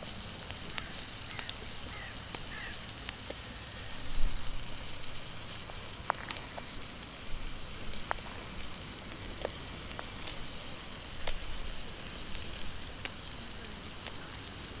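Hamburger patty and chopped vegetables sizzling in a Trangia frying pan, a steady hiss with scattered crackles. A few light clicks from a knife on a plastic cutting board as a tomato is sliced, and one dull bump about four seconds in.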